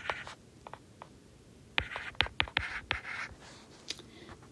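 Stylus writing by hand on a tablet: short scratchy strokes and light taps, sparse at first and then a quick run of strokes past the middle.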